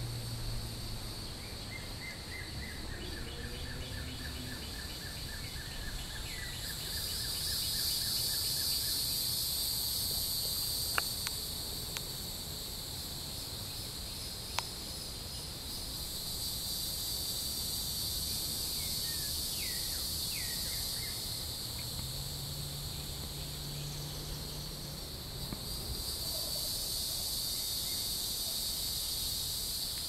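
Hieroglyphic cicada (Neotibicen hieroglyphica) singing: a constant high buzzing drone that swells louder three times, each time for about five seconds.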